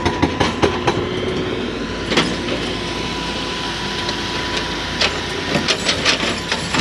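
Excavator diesel engine running steadily with a faint steady whine, and scattered knocks and clanks, the biggest cluster about five seconds in.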